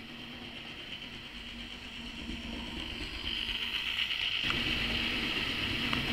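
Hornby OO gauge model Stepney locomotive running on track pulling a brake van: a steady electric motor whine with rolling wheels on the rails, growing louder as the train comes close.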